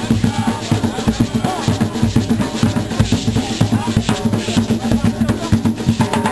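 Drumming music: fast, dense drum strikes over a steady low beat.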